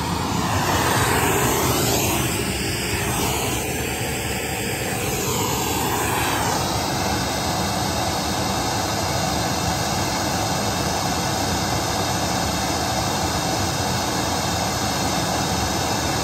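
Steady rushing test noise played through a JBL CBT 70J-1 line-array speaker for an SPL measurement. Its tone shifts and swirls for about the first six seconds, then holds even.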